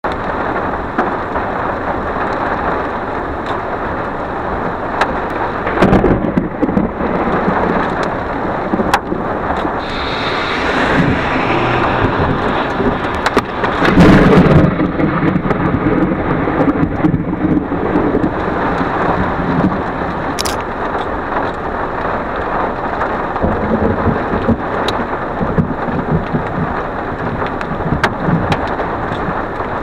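Steady rain with scattered sharp drop ticks. A short clap of thunder comes about six seconds in. Near the middle, a sudden, very loud crack of thunder with a low rumble after it marks a lightning strike on a power line within about 150 yards.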